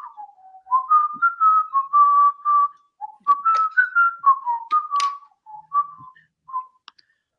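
A person whistling a tune: a string of short notes stepping and gliding up and down, with some breath noise between them, stopping a little before the end.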